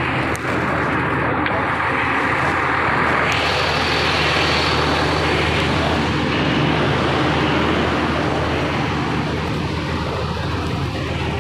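Steady street traffic noise, with a vehicle engine running close by as a low, even hum.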